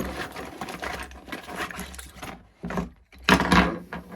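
Metal hand tools, hex drivers, rattling and clinking as they are rummaged through in a tool case, with a louder clatter about three and a half seconds in.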